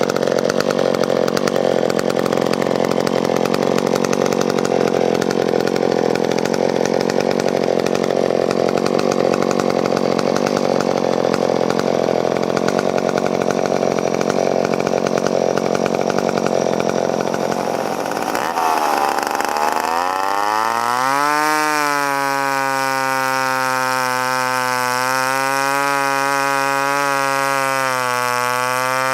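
McCulloch Pro Mac 10-10 two-stroke chainsaw running with a steady, rough sound. About 18 seconds in, the engine climbs in pitch over a couple of seconds and settles into a high, steady whine.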